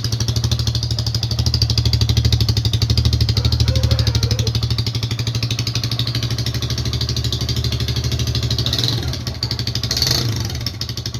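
Yamaha Fazer 150's single-cylinder four-stroke engine idling through an aftermarket ML Competition exhaust, with a steady fast pulse. The engine is still warming up from a cold start.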